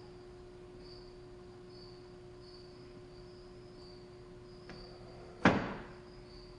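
Wooden gravity-driven kinetic sculpture, a Clayton Boyer Steampunk Impulse Engine, running: a small click about three-quarters of the way through, then one loud wooden clunk with a short ring-out as its mechanism gives an impulse.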